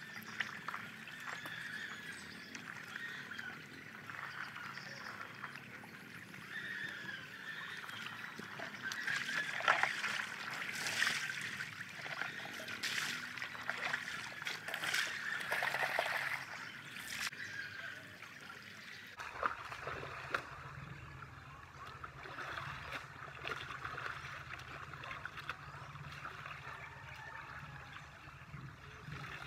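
Shallow stream trickling over rocks, with water being splashed and scooped by hand. The loudest splashes come in a cluster in the middle.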